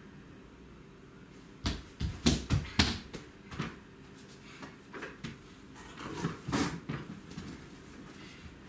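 Irregular knocks and thumps, a quick run of about half a dozen starting a little under two seconds in, then scattered taps.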